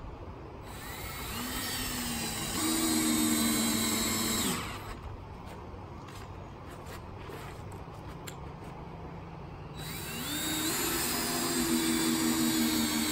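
Cordless drill driving two screws through a metal gate hinge into the wooden rail, one after the other. Each run winds up, holds a steady pitch for a few seconds, then drops off as the screw seats.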